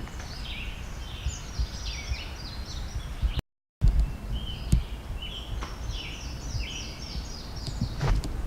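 A songbird singing: quick series of short, falling chirping notes in two runs, cut off by a brief dropout in the middle, over a low outdoor rumble.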